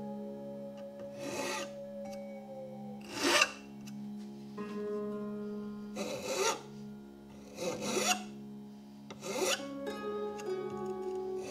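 Mill bastard file rasping across the wooden cheek of an axe handle in about five separate strokes a second or two apart, shaving the handle down to fit the eye of a double-bit axe head. Light background music plays underneath.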